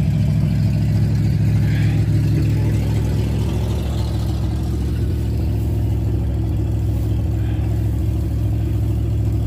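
Engine idling steadily, a constant low hum that holds unchanged throughout.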